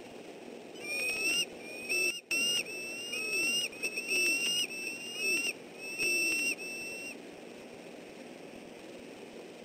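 Bald eagle calling: a run of about ten short, high, whistled notes, each rising slightly in pitch, stopping about seven seconds in.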